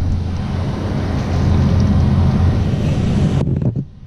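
Wind buffeting the microphone, a loud low rumble that cuts off abruptly near the end.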